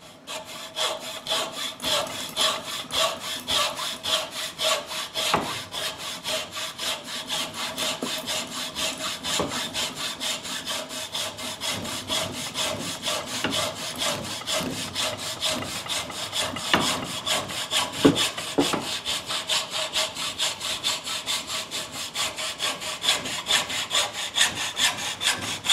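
Hacksaw cutting through a walnut knife-handle block held in a bench vise, in steady back-and-forth strokes, with a couple of sharper knocks about two-thirds of the way through.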